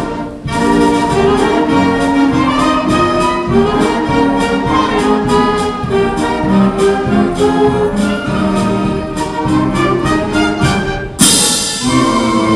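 School concert band playing: woodwinds and brass hold melody and chords over a steady percussion beat of a few strokes a second. About eleven seconds in, a sudden loud metallic percussion crash rings out.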